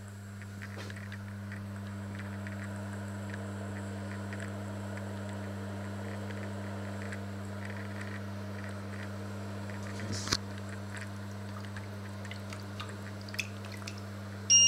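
Stainless steel tray heating on a glass-top electric hob: a steady low hum with faint sizzling and crackling as water on the tray boils off. A sharp click about ten seconds in, and a short electronic beep at the very end.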